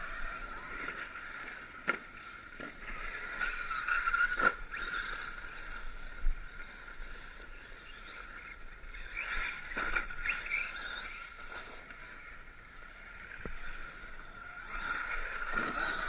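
Electric radio-controlled cars with brushless motors running, a steady high-pitched motor whine that swells and fades as they accelerate, with a few sharp knocks from the cars striking the ground.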